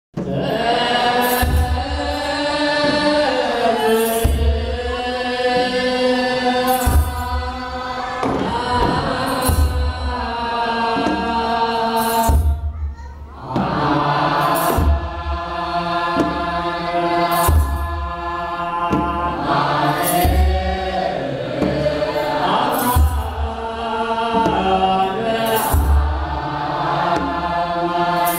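A group of voices chanting an Ethiopian Orthodox hymn together, with a deep kebero drum boom about every three seconds.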